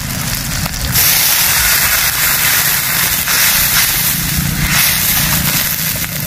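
Hot oil sizzling and crackling in a frying pan, a steady hiss that grows louder about a second in.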